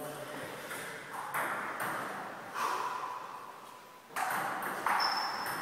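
Table tennis rally: a celluloid ball struck by paddles and bouncing on the table, about five sharp knocks at uneven gaps of half a second to a second and a half, each echoing in a large gym.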